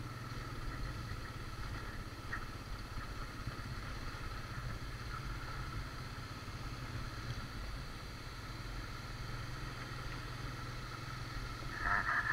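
Suzuki Thunder 125's single-cylinder four-stroke engine running steadily as the motorcycle rolls slowly down a rough dirt track.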